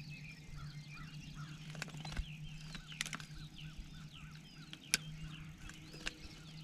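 Small birds chirping and twittering over a steady low hum, with sharp clicks about three and five seconds in.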